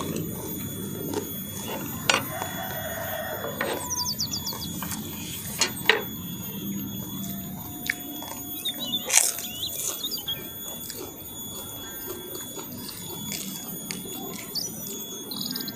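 Close-up eating sounds: kerupuk crackers crunching as they are bitten, with chewing in between. Brief bird chirps and a steady faint high-pitched ringing run underneath.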